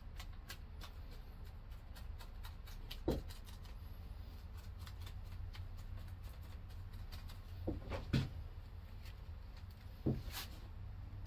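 Resin brush dabbing and working wet chopped strand mat onto a hand-held fiberglass foothold mold: light, irregular ticks and taps, with a few louder knocks, over a steady low hum.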